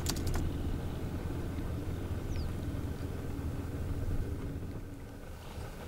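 Light aircraft's propeller engine running at low taxi power, a steady low rumble that fades slightly toward the end.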